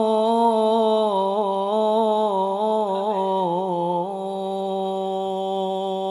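A male vocalist, unaccompanied, sings one long melismatic note of Arabic sholawat devotional song. Quick wavering turns come between about one and four seconds in, and the note then holds steady and a little softer.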